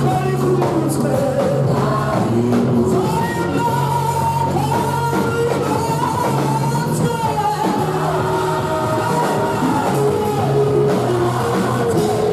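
Live gospel worship song sung in Shona: a sung melody over steady bass notes and drums.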